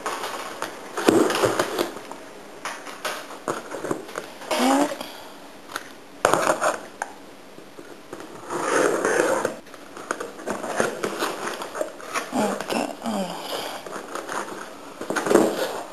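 Cardboard parcel being opened: packing tape cut and pulled with a blade, then cardboard flaps scraped and folded back, in irregular rips and rustles.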